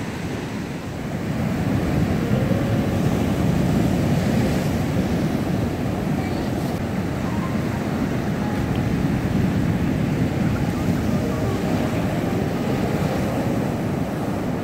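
Rough sea surf breaking and washing in around rocks on a sandy beach: a steady rush of waves that grows louder about a second and a half in.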